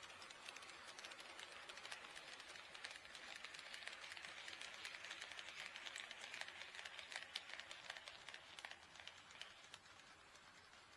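HO-scale model train running on KATO Unitrack, its wheels clicking rapidly and unevenly over the rail joints over a steady rolling hiss. It grows louder through the middle as it comes closer and fades away near the end.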